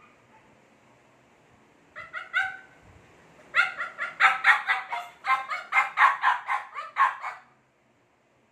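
Chow Chow puppy yapping: three quick high yaps about two seconds in, then a fast string of about fifteen yaps at roughly four a second, which stops about a second before the end.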